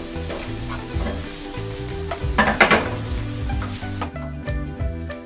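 Diced baby marrow and onion sizzling in butter in a frying pan as they are stirred with a wooden spatula, with a few louder strokes of the spatula against the pan near the middle. The sizzle cuts off abruptly about four seconds in.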